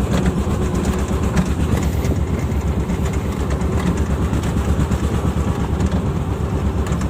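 Engine of a heavy off-road vehicle running steadily while under way: a deep rumble with a fast pulsing beat.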